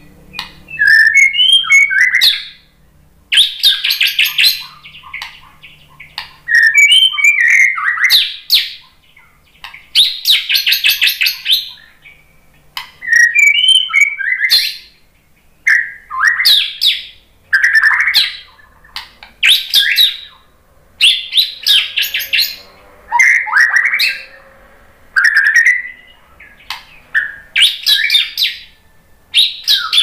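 White-rumped shama (murai batu) singing loud phrases about every two seconds with short pauses between, mixing curving whistled notes with dry, rapid rattles.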